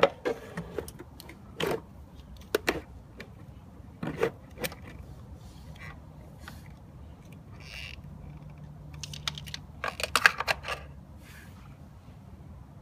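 Scattered sharp clicks and knocks of hard plastic and metal parts being handled, with a quick run of clatter about ten seconds in. This is handwork fitting a new battery into a Suzuki Address V100 scooter.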